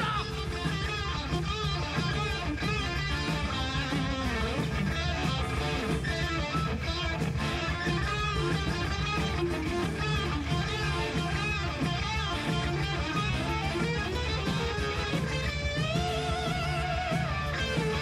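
Live rock band playing, with an electric guitar lead on top: held notes with wide vibrato and a slide up to a high note about two-thirds of the way through, over bass guitar and drums.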